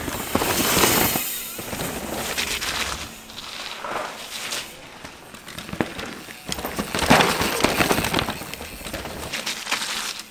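Mountain bikes going by on a loose, rocky trail: tyres crunching and sliding over stones, with the bikes clattering. It is loudest about a second in and again around seven to eight seconds in.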